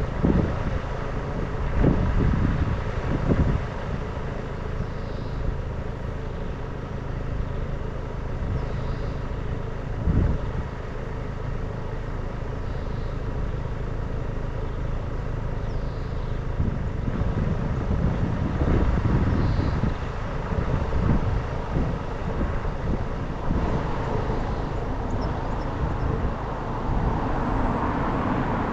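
Road vehicle driving along a road: a steady engine and road-noise rumble, with irregular low gusts of wind buffeting the microphone and the noise growing a little brighter near the end.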